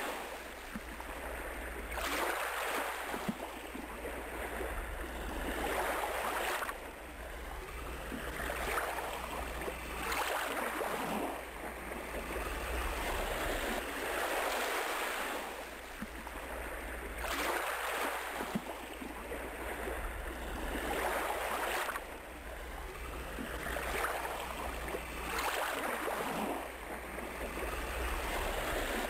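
Ocean surf breaking on a beach, each wave washing in and falling back every two to three seconds.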